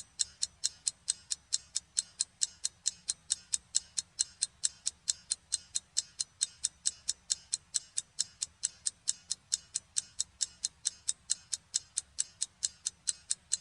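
Clock-ticking sound effect: fast, even ticks at about four a second, marking the time an installation takes.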